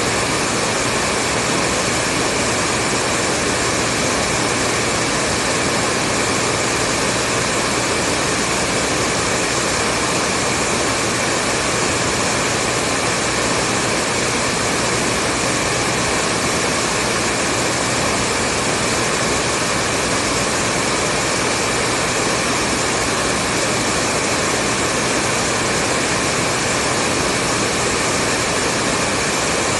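Hair dryer running steadily on one setting: a continuous, unchanging whoosh of blown air with a faint steady motor hum underneath.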